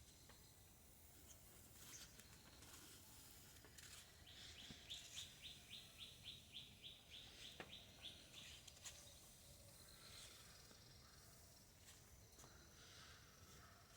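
A bird chirping faintly in a quick run of short, high, evenly spaced notes, about four a second, for some four seconds in the middle, against quiet background noise.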